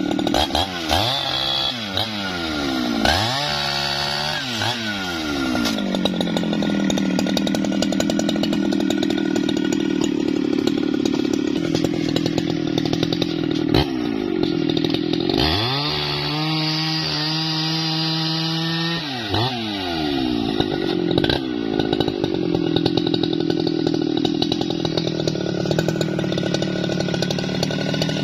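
Jonsered two-stroke chainsaw cutting through a felled tree trunk. Its engine pitch rises and falls several times near the start and again midway, and holds a steady lower note in between while the bar is in the wood.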